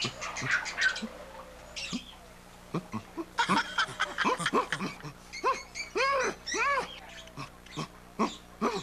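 Ape-like hooting and chattering for a costumed gorilla: a short burst of chatter at the start, then a quick run of loud hoots, each rising and falling in pitch, with a few shorter calls near the end.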